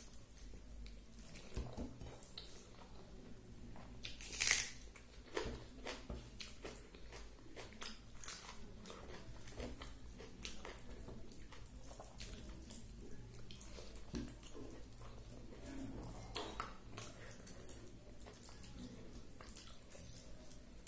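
Eating rice by hand: fingers squishing and mixing rice with vegetable curry on a plate, and chewing, as faint wet clicks scattered throughout, with one louder click about four and a half seconds in.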